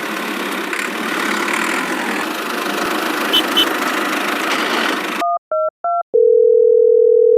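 A steady engine-like running noise that cuts off abruptly about five seconds in. It is followed by three short two-pitch beeps and then one long steady electronic tone, like a telephone tone sound effect.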